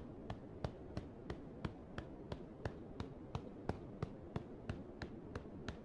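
Fingertips pecking in light, even taps at the crease of the elbow for acupressure of the Lung 5 point, about three faint taps a second.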